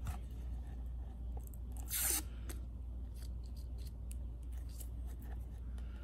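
A clear acrylic remote-control holder being handled: scattered light clicks and taps of the plastic, with one brief scraping rustle about two seconds in, over a steady low hum.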